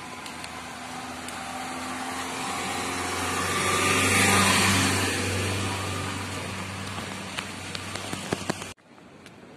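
A motor vehicle passing on the adjacent road: engine hum and tyre rush swell to a peak about four seconds in, then fade away. A few light clicks follow, and the sound cuts off suddenly near the end.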